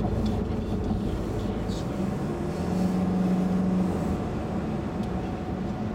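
Steady engine and tyre noise heard from inside a moving car's cabin, with a low hum that swells for about a second midway.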